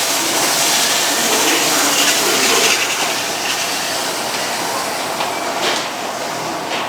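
Seibu commuter train running along the station platform: a steady rush of wheel and running noise that eases slightly toward the end.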